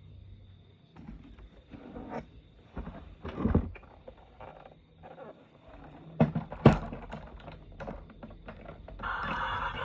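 Irregular knocks, clicks and scrapes from handling plastic toy vehicles and their packaging, with louder knocks about three and a half and six and a half seconds in. Music starts near the end.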